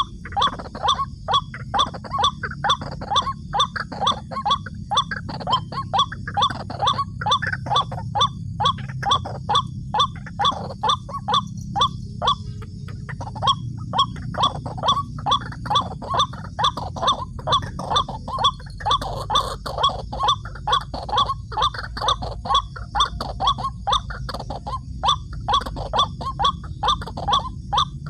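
White-breasted waterhen calls, one short call repeated evenly about twice a second, over a steady low rumble.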